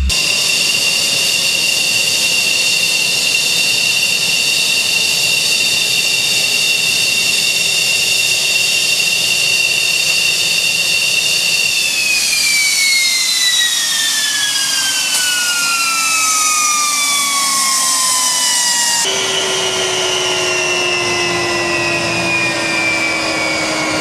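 MiG-29's twin RD-33 turbofans whining steadily at idle. About halfway through, the whine starts to fall in pitch as the engines are shut down and spool down.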